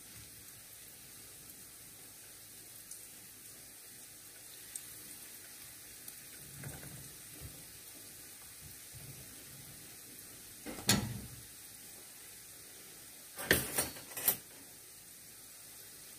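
Oil sizzling steadily as okoy, vegetable and dried-shrimp fritters, shallow-fry in a frying pan. Sharp utensil knocks come once about 11 seconds in and three times in quick succession near the end, with a few softer knocks earlier.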